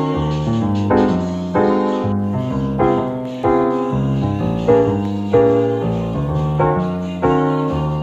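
Background piano music: notes struck about every half second over lower bass notes.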